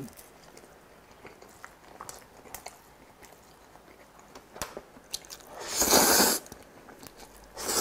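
Close-miked chewing of a seaweed-wrapped triangle kimbap, with soft scattered biting and chewing clicks. About six seconds in comes a loud slurp of stir-fried instant noodles, and another near the end.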